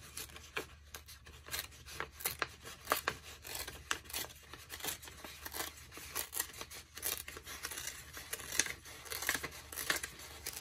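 A sheet of heavy printed paper being torn slowly by hand: a long, uneven run of small ripping crackles.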